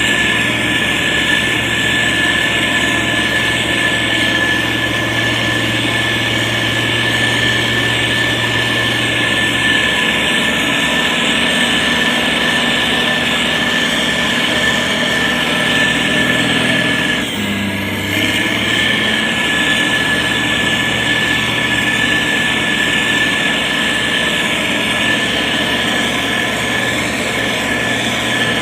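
Heavy construction machine's diesel engine running steadily, with a steady high whine over it; the engine note dips and shifts briefly about two-thirds of the way through.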